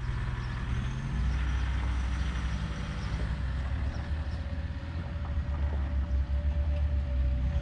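An engine running steadily at constant speed, a deep drone with a fast flutter and a faint steady whine above it; it comes in abruptly at the very start.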